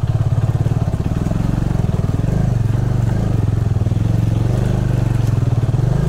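Motorcycle engine running steadily with a fast, even pulse as the bike is ridden along a rough off-road track.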